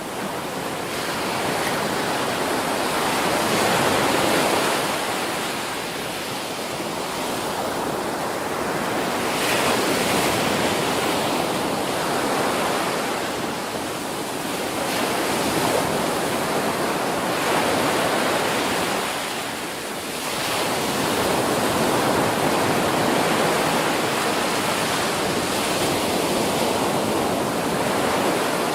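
Ocean waves breaking on a beach: a continuous wash of surf that swells and eases as successive waves crash about every six seconds.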